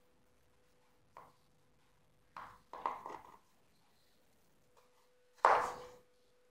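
Large kitchen knife cutting through a raw potato and knocking on a wooden cutting board: a faint knock about a second in, a few cuts around two and a half to three seconds, and a louder one near the end.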